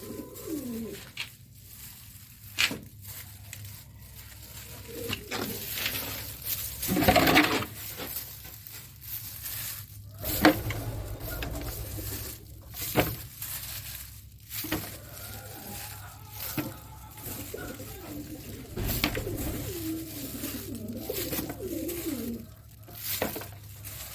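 Domestic pigeons cooing, with low repeated calls that come most thickly in the second half, among scattered knocks and a rustle about seven seconds in.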